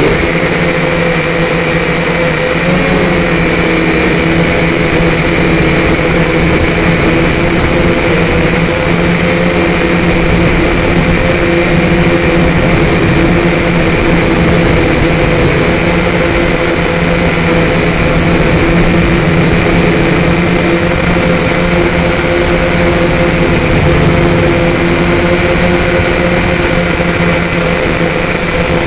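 Syma quadcopter's small electric motors and propellers running in flight: a steady whine made of several held tones over a hum and rush, heard close up from the drone's own camera.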